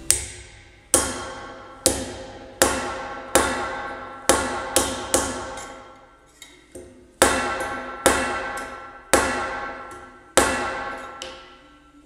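Rawhide-faced, cast-iron-headed hammer striking a bent sheet-metal drum-switch bracket against a metal bench top to straighten it. About a dozen sharp blows come roughly a second apart, each ringing and dying away, with a pause of about two seconds near the middle.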